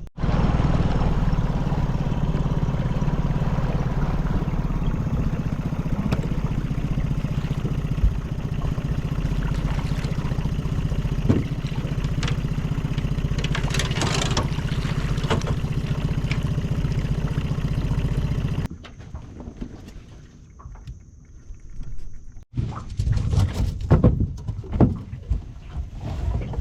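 Outboard motor of a small boat running steadily under way, which stops abruptly about two-thirds of the way through; quieter knocks and rattles follow near the end.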